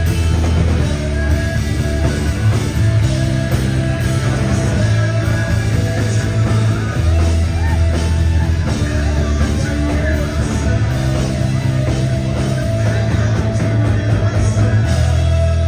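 A rock band playing live and loud: bass, guitars and drums with a singer's voice over them.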